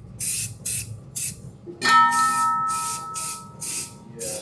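Aerosol spray paint hissing out of the can in short repeated bursts. About two seconds in, a sharp metallic clang rings on like a bell and fades over a couple of seconds.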